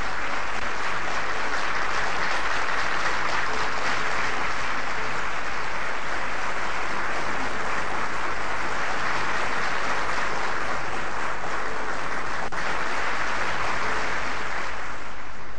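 Audience applauding steadily, a dense, even clapping without voices on top. A low electrical hum runs beneath it.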